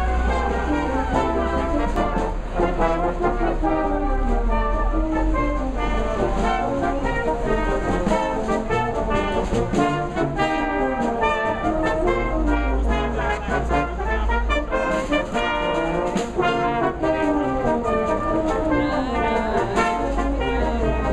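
A Salvation Army brass band of cornets, tenor horns, euphoniums and tubas playing a tune together, the notes moving steadily over a bass line.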